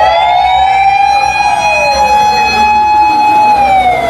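Aerial-ladder fire truck's siren wailing: a high steady tone that starts to slide down in pitch near the end, with a second siren tone falling beneath it.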